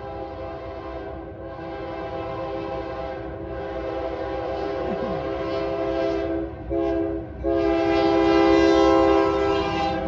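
Union Pacific GE ET44AH locomotive's multi-chime air horn sounding the grade-crossing signal as the train approaches: long blasts, then a short one and a final long one near the end, growing louder as it nears.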